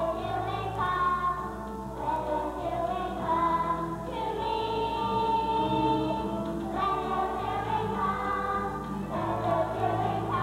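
Children's choir singing a song, with one long held note about halfway through.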